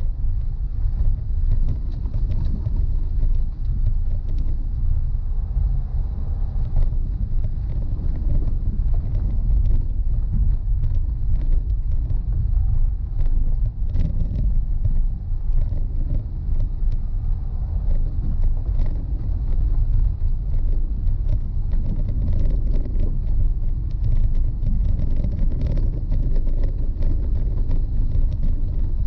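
A vehicle driving over a rough gravel road: a steady low rumble of engine and tyres, with frequent small clicks and rattles throughout.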